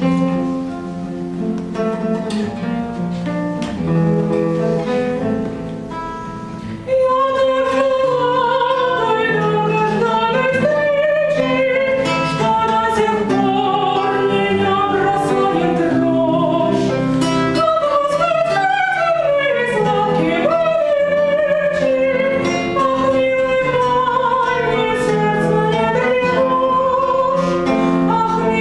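Acoustic guitar playing the introduction to a romance, then a woman starts singing over the guitar accompaniment about seven seconds in.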